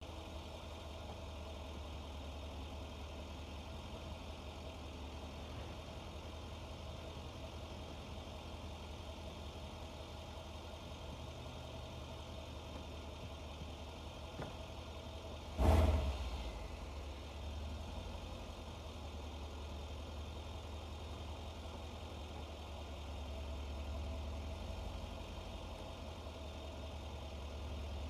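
2013 Mercedes-Benz SL's retractable hard top in operation over a steady low idle hum, with one sharp thump about halfway through as a roof panel or the trunk lid seats.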